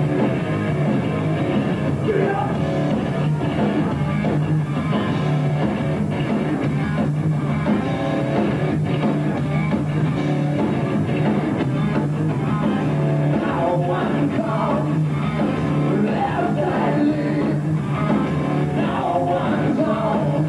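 Heavy rock band playing live, with drum kit, guitars and a man singing into a microphone, recorded from the audience on the concert floor.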